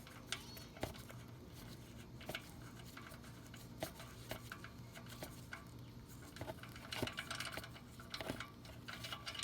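Faint scattered clicks and taps as the oil drain bolt is unscrewed from a small generator engine and the oil begins to run out, with a steady low hum underneath.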